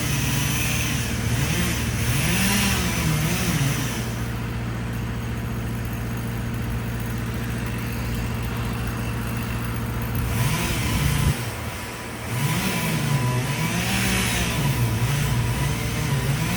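Skid steer engine running under load, its revs rising and falling over and over as the machine works, with a brief lull about two thirds of the way through.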